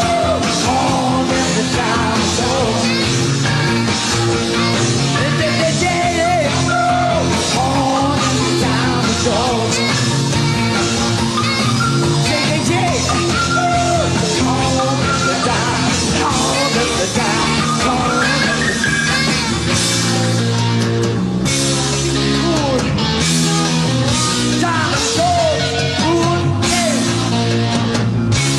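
Rock music playing steadily, with a voice singing over the band in places.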